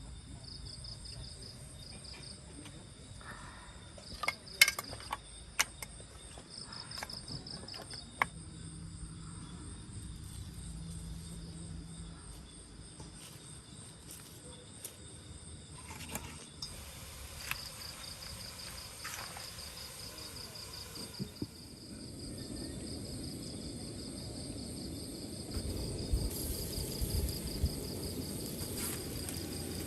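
Insects trilling in fast repeated pulses, with a scatter of sharp clicks and knocks. A low rushing noise comes up about two-thirds of the way in.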